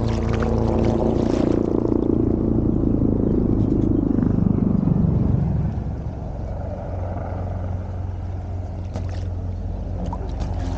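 Motorboat engine passing by, its pitch falling steadily for about five seconds before the sound drops to a quieter, steady low drone. A couple of small splashes come near the end.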